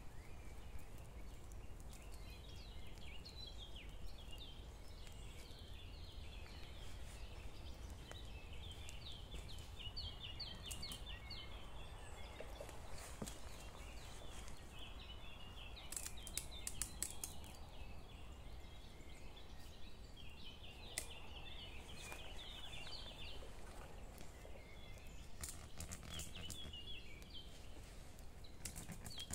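Small birds chirping and calling repeatedly in woodland, over a low steady background rumble. A few sharp clicks come midway and again later.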